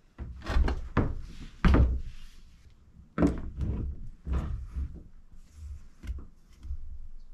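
Irregular series of about a dozen knocks and thunks, each with a short ring, the loudest a little under two seconds in: metal parts being knocked about while a pedal is fitted to a homemade unicycle.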